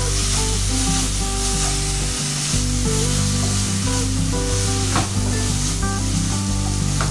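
Chopped prawns with onion and tomato sizzling as they fry in a non-stick kadhai, stirred with a spatula, with a couple of spatula knocks against the pan about five and seven seconds in.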